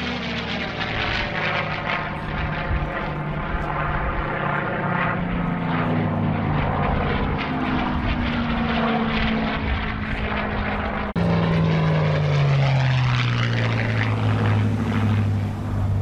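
P-51 Mustang's Packard Merlin V-12 engine running as the fighter flies past overhead, its pitch falling as it goes by. About eleven seconds in the sound cuts abruptly to another, louder pass, its pitch again falling.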